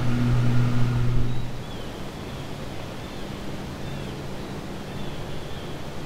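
Wind rumble and hiss on the microphone, with a steady low hum over it that cuts off abruptly about a second and a half in. After that, an even wind hiss with a few faint, short high chirps.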